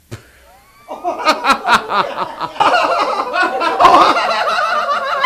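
Hearty laughter: a man cackling in loud, rapid bursts, starting about a second in.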